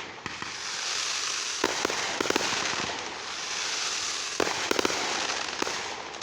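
Fireworks going off: a continuous dense crackle with about five sharper bangs, two close together near the middle and three more in the second half.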